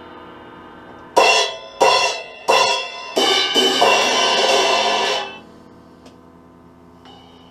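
Drum kit: crash cymbals ringing and fading, then three hard cymbal crashes about two-thirds of a second apart, followed by about two seconds of rapid cymbal and drum hits that cut off suddenly, leaving a faint cymbal ring.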